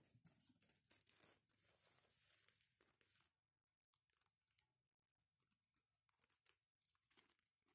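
Faint rustling and crinkling of a thin plastic sheet protector being handled, then a few faint scattered ticks and taps.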